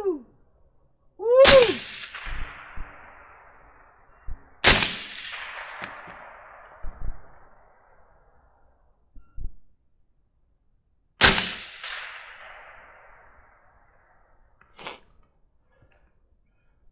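Three gunshots, each followed by a long rolling echo: the first about a second and a half in, just after a short call that rises and falls in pitch, then follow-up shots about three seconds and about ten seconds in. A smaller, fainter burst comes near the end.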